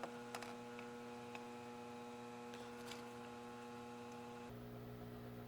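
Faint, steady electrical mains hum with a few light ticks in the first three seconds. About four and a half seconds in, the background changes abruptly and a deeper hum comes in.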